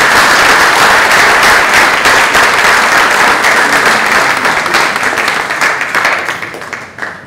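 Audience applause: many people clapping at once, loud and steady, then dying away near the end.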